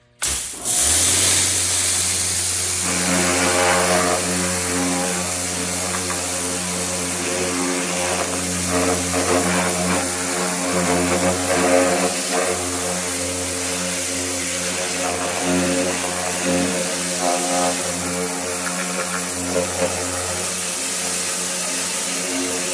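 Pressure washer running steadily, its motor or pump humming under the hiss of the high-pressure water jet striking a rusty steel trunk lid. It starts about half a second in, and the spray noise swells a little as the jet moves over the panel.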